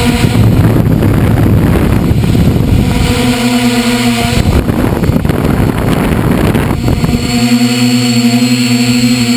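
A drone's motors and propellers humming steadily, heard from the camera on the drone. Twice, for a few seconds each, a rushing noise of wind over the microphone covers the hum.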